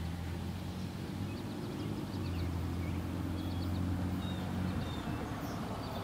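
Low, steady rumble of approaching diesel freight locomotives, still out of sight, slowly growing louder.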